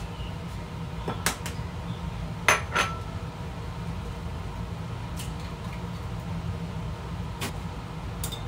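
Eggs being cracked against the rim of a bowl: several short sharp taps, two of them close together about two and a half seconds in, over a steady low hum.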